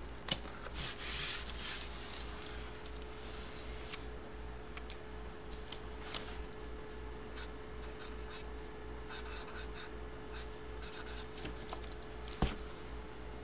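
Paper and cardboard rustling and sliding as a large photo in its sleeve is handled, then short scratchy strokes of a felt-tip marker writing on the sleeve, and a sharp click near the end. A faint steady hum runs underneath.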